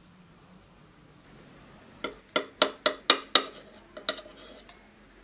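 Metal knife and fork cutting food on a ceramic plate, clinking against it: a quick run of about six sharp chinks starting about two seconds in, then a few lighter taps.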